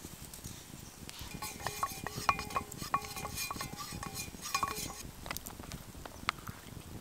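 A wooden spoon stirring in a metal cup, knocking against its sides so the cup clinks and rings briefly, repeatedly for about three seconds; a few sharp clicks follow near the end.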